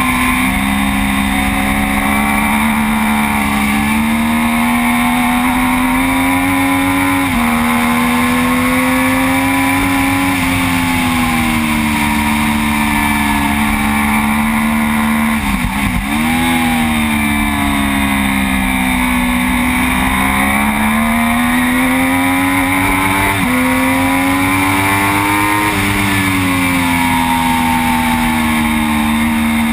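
Onboard sound of a Triumph Daytona 675 sport bike's engine at race pace. The revs climb and then drop suddenly at upshifts, about a third of the way in and again about three quarters through. In between they fall away and climb again as it slows for corners and drives out of them.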